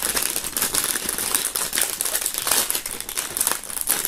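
Thin clear plastic bag crinkling as hands pull a keychain out of it, a dense run of short, irregular crackles.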